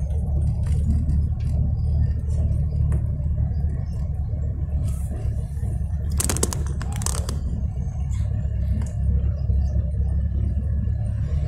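Steady low rumble of a car's engine and tyres heard from inside the cabin while driving. Two brief scraping rattles come about six and seven seconds in.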